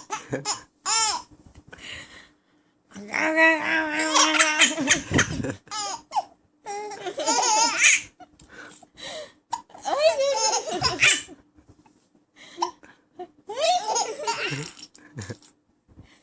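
Baby laughing in repeated bouts of giggles and belly laughs, with short pauses between them and one longer bout a few seconds in.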